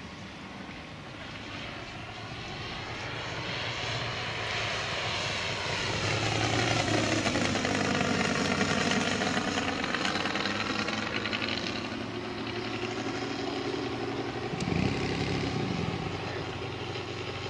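Five-cylinder 420cc Valach VM R5-420 radial engine of a half-scale RC Klemm Kl 25 running in flight as the plane makes a pass. It grows louder towards the middle, then eases off as the plane banks away.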